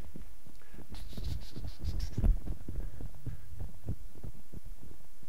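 Footsteps and clothing rustle heard close up: an irregular string of soft low thumps with one louder knock about two seconds in.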